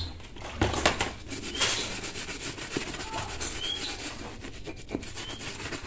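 A brush scrubbing an aluminium Yamaha RX-King engine cover with soap to work off paint that thinner has softened: an uneven scrubbing noise with a few sharper strokes.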